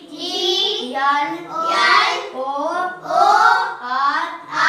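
A child's voice reciting flower names aloud in a sing-song chant, one phrase after another.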